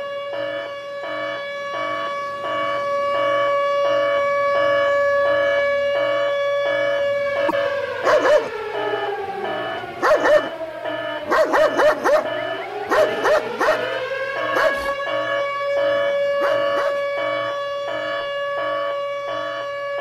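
A pulsing siren wails throughout; its pitch sinks and climbs back through the middle. Meanwhile a German Shepherd barks and snarls in several sharp bursts.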